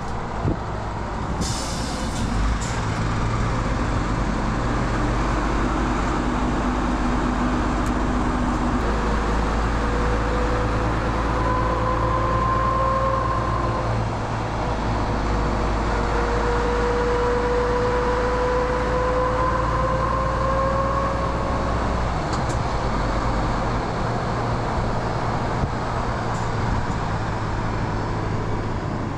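Heavy truck's diesel engine running under way with tyre and road noise, its low note shifting in pitch a few times; a whine rises and falls through the middle, and a short hiss comes near the start.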